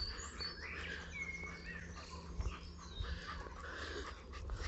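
Wild birds singing and chirping, a mix of short high whistles and chirps, over a low steady background hum.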